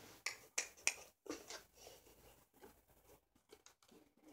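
Plastic water bottle handled, giving a run of sharp crinkles and clicks, loudest in the first second and a half and then fainter and scattered.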